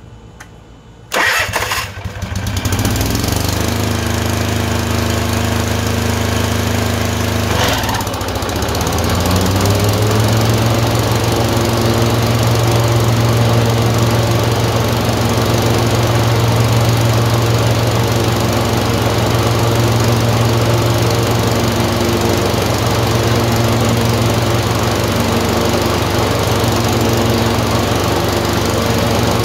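Tecumseh 22 HP twin-cylinder engine starting about a second in and running; near eight seconds its note changes, then it runs on with a regular pulsing waver. The engine has a surging fault with a misfire that alternates between its cylinders.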